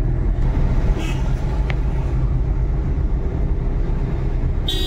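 Steady road and engine rumble of a moving car, heard from inside the car. Near the end, a vehicle horn starts to sound.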